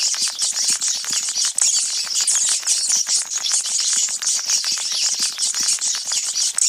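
Sound effect of a swarm of sewer rats: a dense, unbroken chattering of high squeaks and scratchy clicks.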